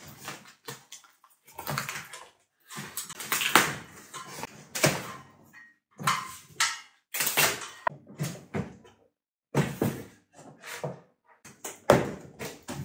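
A cardboard shipping box being cut open and unpacked: tape slit with a cutter, flaps and cardboard rustling and scraping, and irregular knocks. A sharp knock comes near the end as the boxed helmet is lifted out.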